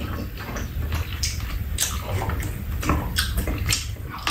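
Close-up eating sounds: wet slurping and chewing of soup and miso chicken rice, a quick string of short mouth noises.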